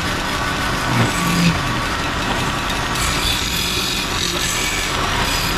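Motor-driven wood lathe running while a hand-held chisel cuts into a spinning wooden bed leg, the steel scraping and peeling off wood shavings.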